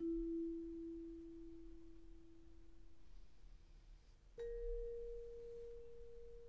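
Ambient music of single bell-like pure tones. A low tone is struck at the start and left to ring out slowly. A higher tone is struck about four and a half seconds in and keeps ringing.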